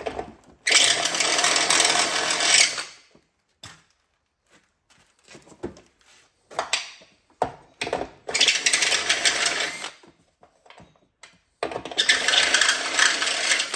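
Handheld drill with a step drill bit enlarging a corroded bolt hole in a metal running board, run in three short bursts of about two seconds each, with light clicks and handling between.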